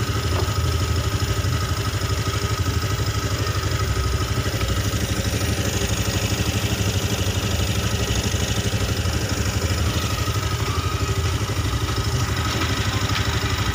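Honda Vario 110 scooter's single-cylinder engine idling steadily while it is warmed up, to see whether it stalls when hot. The fault behind it is blink code 52, which the mechanic puts down to a weak pulser (crankshaft position sensor).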